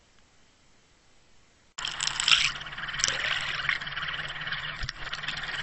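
About two seconds of near silence, then a sudden loud rush and gurgle of water with a faint low hum beneath it: water flowing over the Water Wolf UW1.0 underwater camera's housing as it is drawn up through the water.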